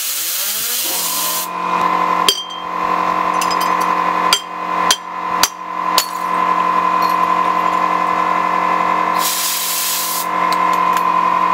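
A metal fidget spinner is blown up to speed with a compressed-air blow gun. The air hiss gives way to a rising whir that settles into a steady high-pitched hum. Several sharp knocks come a couple of seconds in, and a second burst of air hiss comes near the end while the spinner keeps humming.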